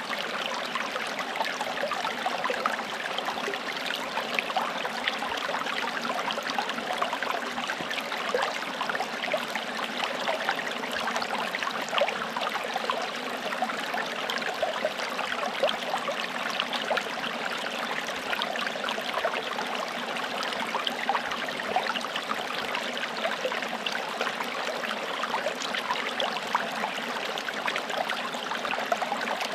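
Small stream flowing and splashing over stones, a steady babble with many little flickers.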